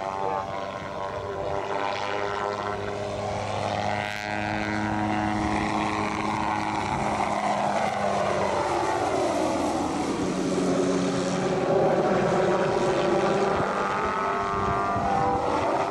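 Hughes 500 (MD 500) light helicopter's turbine and rotor running hard through a low aerobatic display. Its pitch sweeps down and back up around the middle as it passes and banks.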